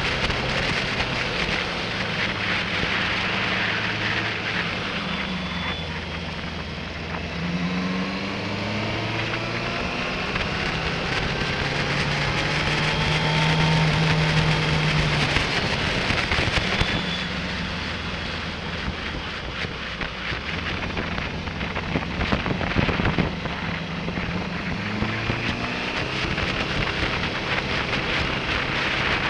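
Motorcycle engine pulling along a winding road, its revs climbing and dropping back several times as it shifts gears and rolls on and off the throttle, with wind buffeting the microphone.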